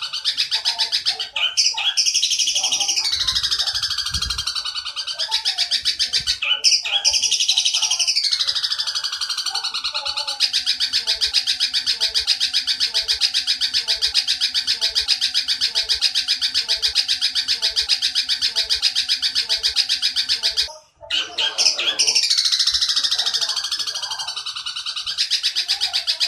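Looped bird-song training recording (masteran) for long-tailed shrikes: repeated falling squeaky sweeps, then a long, fast, unbroken tree-sparrow-style chatter ('gereja nyerecet panjang') that breaks off for a moment about twenty seconds in before the sweeps return. A fainter, lower call pulses about once a second beneath the chatter.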